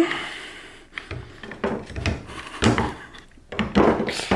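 Car door handle parts knocking and clicking as they are worked and snapped together, several short knocks with a louder clatter near the end.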